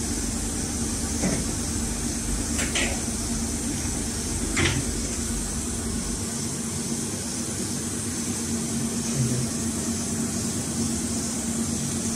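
Steady electrical machine hum with a constant low tone and a high hiss, broken by a few brief rustles of clear TPU film as it is handled on the welder table.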